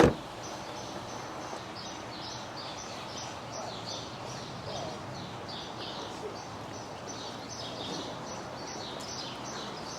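A single loud thump at the very start, then birds chirping over and over in short high notes against a steady outdoor hiss.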